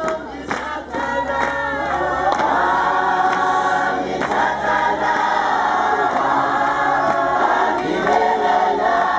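A crowd of worshippers singing together, many voices in a gospel-style chorus that holds on without a break.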